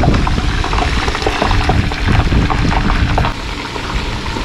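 Whole turkey deep-frying in hot oil, the oil bubbling and crackling with a dense spatter of small pops.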